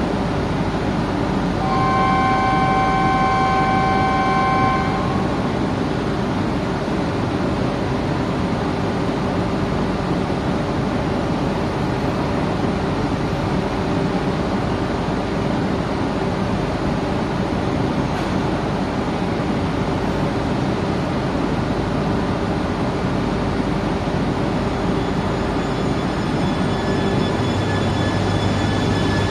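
E3-700 Genbi Shinkansen train standing at the platform with a steady hum, while a steady multi-tone chime sounds for about three seconds a couple of seconds in. Near the end the train starts to pull out: a thin whine and a low hum come in from its drive.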